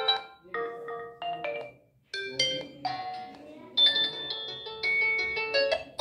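Realme 7i ringtone previews playing through the phone's speaker: about four short chiming tunes one after another, each cut off abruptly as the next ringtone in the list is tapped, with a brief gap about two seconds in.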